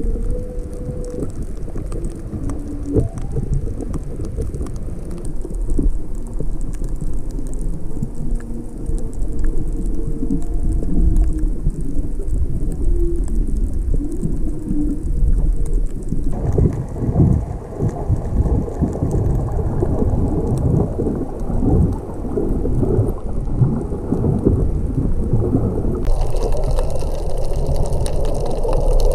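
Underwater sound through a GoPro Hero5's housing: a steady low rumble of the sea. In the first half, distant humpback whale song comes through it as drawn-out moans that rise and fall. About halfway through, the sound gives way to a louder crackling water noise.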